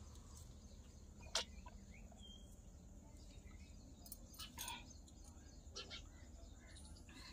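Near silence, broken by a few faint clicks and gulps as water is drunk from a small steel lota. One short high chirp comes about two seconds in.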